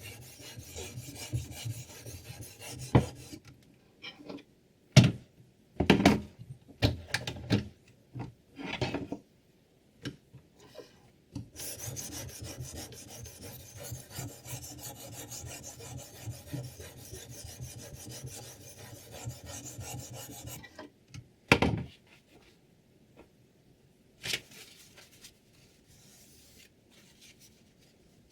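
A sharpening stone scraping back and forth along a knife edge on a guided-angle knife sharpener. First come a series of separate strokes, then about nine seconds of steady, rapid strokes, then a single louder stroke before it goes quiet.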